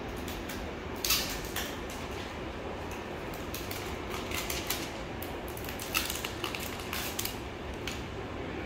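Plastic wrapping crinkling and crackling in irregular bursts as a new Samsung Galaxy Z Flip4 phone is unwrapped by hand, over a steady room hum.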